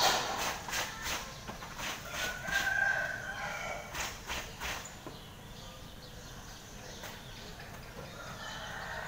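A drawn-out animal call, held for about a second a little over two seconds in, over scattered light clicks and knocks of plastic toys being handled.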